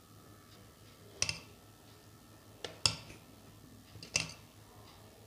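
Steel spoon clinking against the rim and side of a steel pot while stirring through thick rabri: about four short, sharp clinks spread over the few seconds, the loudest a little under three seconds in.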